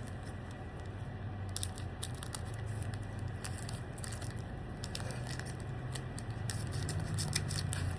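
Foil wrapper of a Pokémon booster pack crinkling and tearing as it is opened: a run of small crackles starts about a second and a half in and gets busier near the end, over a steady low hum.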